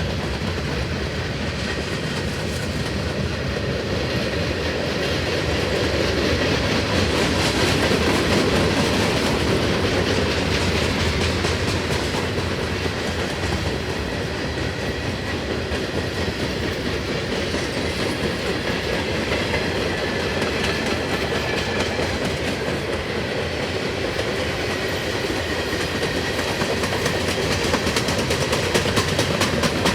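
Cars of a long freight train rolling past at speed, the wheels clattering over the rail in a steady rumble.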